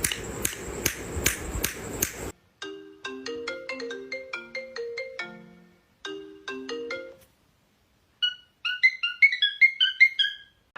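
Ringtone-style melody of short clear pitched notes, then after a pause a quicker run of higher chirping notes. It opens with about two seconds of loud noisy rustling with a regular beat.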